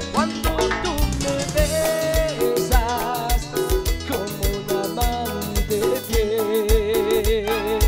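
Live band playing an instrumental stretch of Latin dance music: a steady low drum beat about twice a second under a melody with wavering, vibrato notes.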